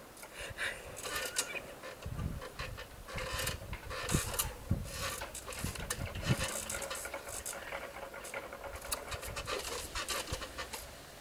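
Scattered light taps, rubs and rustles of hands and clothing as a person signs with their hands, with a faint steady hum underneath.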